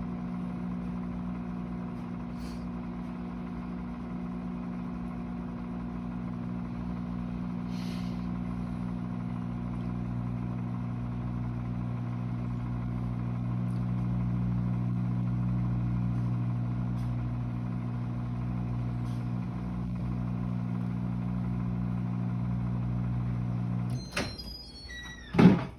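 Microwave oven running with a steady hum while it melts butter in a bowl. The hum stops near the end, followed by a short tone and a loud click.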